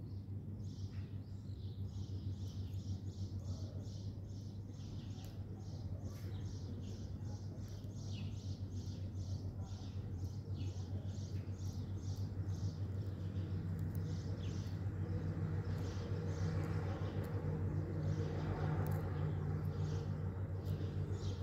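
Outdoor ambience: a rapid series of short high chirps, about three or four a second, from a small animal, over a steady low hum. The hum grows a little louder in the second half.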